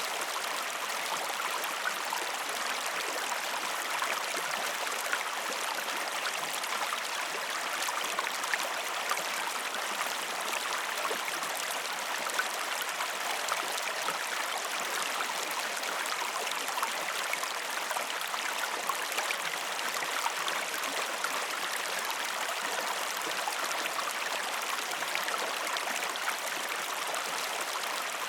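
Mountain stream cascading over rocks: a steady rush of running water with constant small splashes and gurgles.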